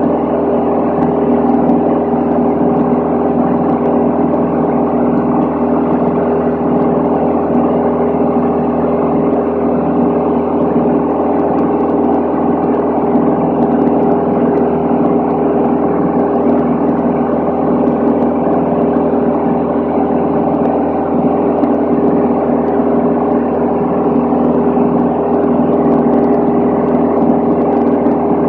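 Van's RV-10's piston engine and propeller droning steadily, heard from inside the cabin in flight.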